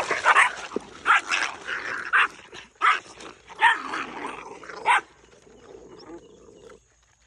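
Puppies barking and snarling in a scuffle over food, in sharp bursts through about the first five seconds, then dying down to quieter sounds.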